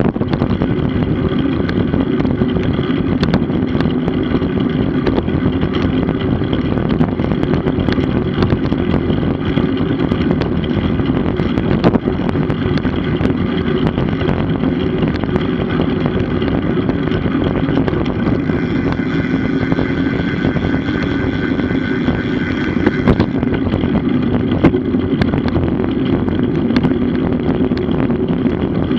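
Steady rush of road-bike tyre and wind noise while riding, with many small ticks and rattles.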